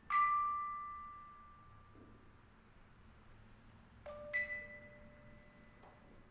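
Slow, sparse bell-like music notes, each struck once and left to ring and fade: one at the start, then two more close together about four seconds in.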